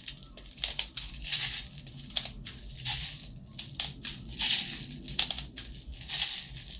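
Airsoft BBs rattling and clicking as a BB loader is pumped to push them into a gas pistol magazine, in a rapid irregular run of short rattles.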